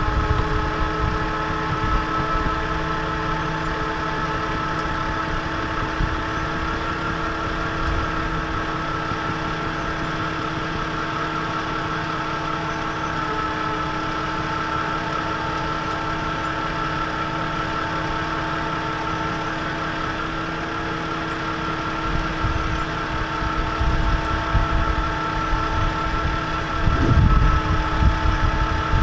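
A tow truck's engine idling steadily, with a steady whine held over the low running sound. The low rumble swells over the last few seconds.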